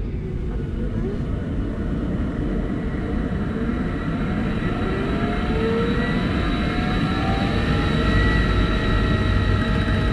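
Steam ship's turbines and engines spinning up as the boilers are connected: a deep, steady rumble with whines slowly rising in pitch from about halfway through, as the engines come up to power.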